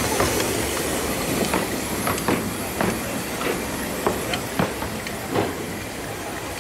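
Narrow-gauge steam locomotive Hawk running slowly past and away over the track, with a string of irregular clicks and knocks from its wheels and running gear over a steady low background. The sound slowly fades as it moves off.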